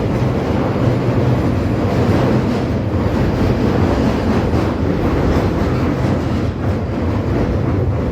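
London Underground Northern line train running at speed in a tube tunnel, heard from inside the carriage as a steady, loud rumble of wheels on rail.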